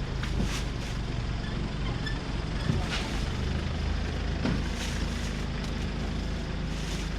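A running engine's steady low hum, with a few scattered knocks and clatters.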